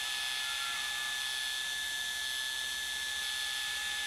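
Metal lathe running under a turning cut in a steel bushing, a steady whine with a few fixed tones over a hiss.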